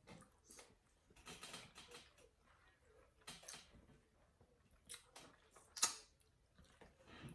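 Faint, irregular wet clicks and smacks of a person chewing pork neck bones with the mouth close to the microphone, the sharpest about six seconds in.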